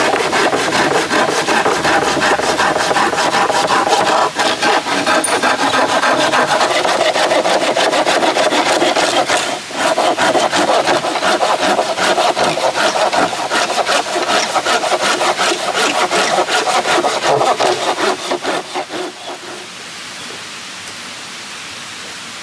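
Hand saw cutting a wooden plank in steady back-and-forth strokes, with a short break about ten seconds in; the sawing stops a few seconds before the end.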